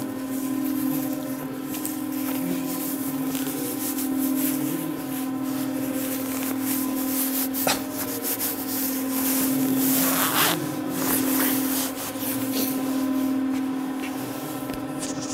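Steady machine hum at one constant pitch, with a rubbing hiss over it and a couple of short knocks about eight and ten seconds in.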